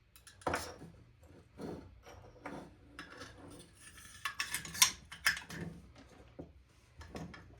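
Small metal airsoft cylinder parts being handled on a bench: a string of light clicks and clinks with some scraping, the loudest knock about five seconds in.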